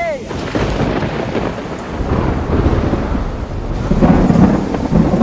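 Thunder rumbling over steady rain, swelling to its loudest about four seconds in.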